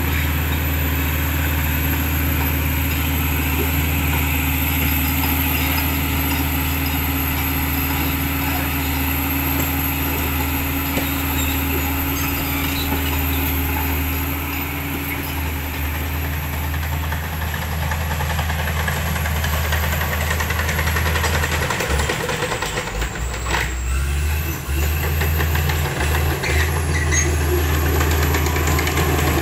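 Komatsu D65P crawler dozer's diesel engine running steadily under load as it pushes earth with its blade.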